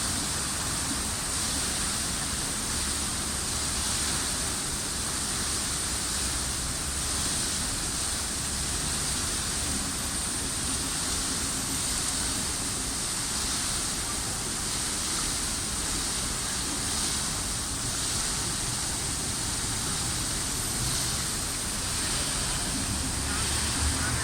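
Fountain water falling and splashing in a steady, unbroken rush.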